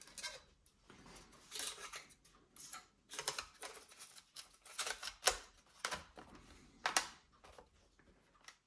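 Drive-bay cover being fitted onto the underside of a Sony Vaio laptop and pressed into place by hand: a string of irregular clicks, taps and short scrapes as the cover seats against the laptop case.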